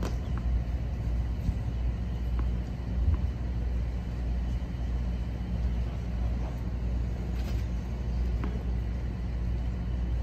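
Steady low rumble with a faint hum, under a few short sharp knocks of a tennis ball being bounced and struck.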